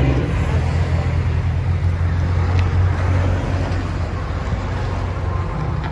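Dodge Ram 1500's 5.7L HEMI V8 with a muffler delete, running with a low, steady exhaust note as the truck rolls slowly away across a parking lot.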